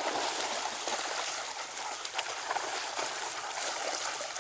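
Several dogs wading and splashing through shallow pond water: a steady splashing rush with scattered sharper splashes.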